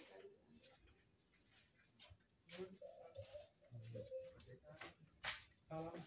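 Insects chirring in a steady, high-pitched trill, with faint men's voices talking, clearest near the end.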